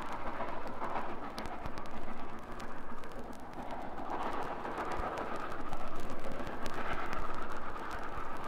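Steam locomotive and its train running: a rushing, rumbling noise that swells and fades, growing louder about six seconds in, with scattered sharp clicks.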